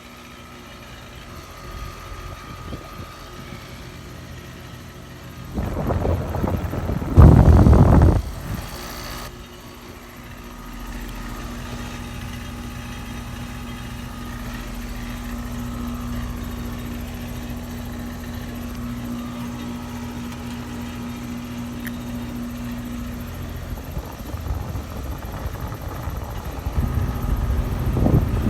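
Carrier air conditioner running in cool mode: a steady fan-and-compressor hum with a faint steady tone. A loud rushing surge lasts about two seconds starting around six seconds in, and another comes near the end.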